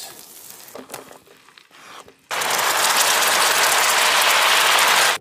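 Liquid frothing in a hot pan sizzling hard as lemon is squeezed into it, a loud steady hiss that starts abruptly a little over two seconds in. Before that there are a few faint clicks of handling.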